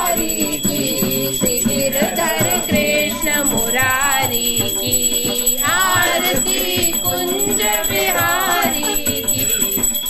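Indian devotional song (bhajan): a singing voice with wavering pitch over tabla and harmonium accompaniment.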